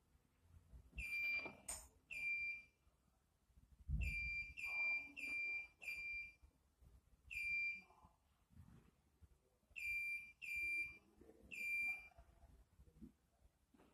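Short, identical high electronic beeps from a HIFU and Liposonix beauty machine, about ten of them at uneven spacing, some in quick runs of two to four. Soft knocks and handling noise come between the beeps.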